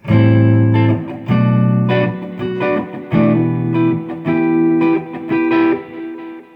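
Electric guitar, a '54 Les Paul, playing a short clean lick through a Bludotone Skyliner Mini amp, a tube preamp driving a Class-D power amp: a phrase of picked notes and double-stops that ring on, dying away near the end.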